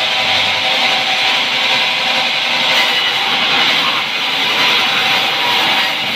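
Large vertical sawmill band saw ripping a log lengthwise: a steady, loud sawing noise of the blade running through the wood.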